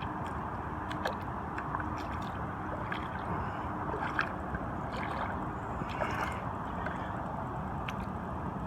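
Shallow water sloshing and splashing lightly as a small bass is let go back into the water, with a string of short splashes roughly once a second, the loudest about four seconds in, over a steady rush of background noise.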